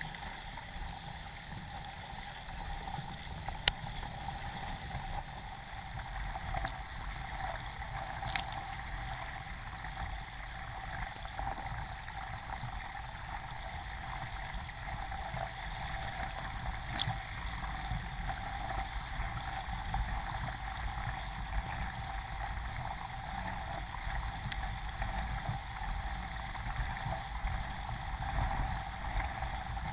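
Water rushing steadily past the hull of an Epic Legacy XL K1 racing kayak as it is paddled along a river, heard from a camera mounted on the boat. A few sharp ticks stand out, about 4, 8 and 17 seconds in.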